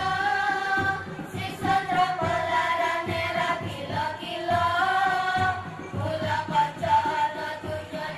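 Children singing a song together over accompanying music with a quick, steady percussion beat.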